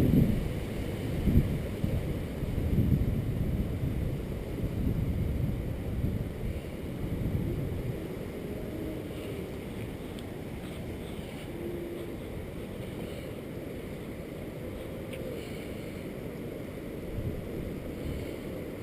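Storm wind gusting across the microphone: strong gusts in the first several seconds, then easing to a steadier low rumble.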